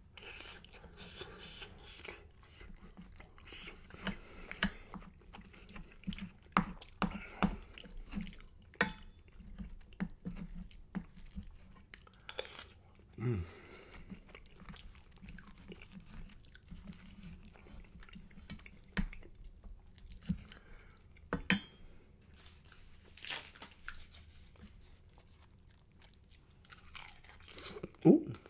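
Close-miked chewing of spicy rice with melted Gouda cheese and egg, with wet mouth clicks, smacks and a little crunch, as in ASMR eating. A louder smack comes near the end.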